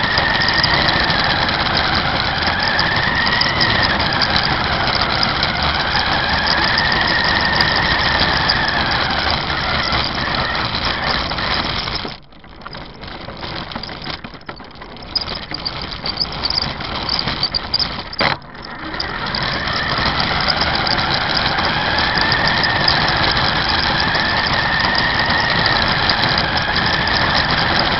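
Toy RC car's electric motor and gears whining close up as it drives over asphalt, the whine rising and falling in pitch as it speeds up and slows. About twelve seconds in the motor drops away for some six seconds, with a sharp click near the end of that lull, then the whine starts again.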